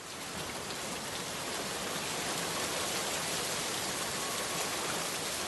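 Steady rain falling, fading in over the first second or two and then holding at an even level.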